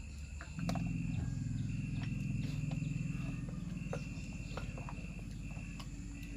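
Crickets trilling steadily in stretches of a second or so with short breaks, over a louder low hum that comes in about half a second in. Scattered light clicks sound throughout.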